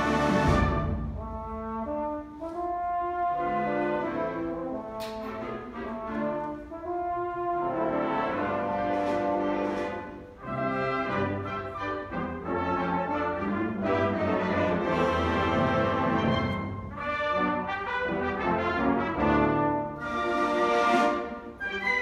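Orchestral background music with prominent brass, sustained chords that shift every second or so.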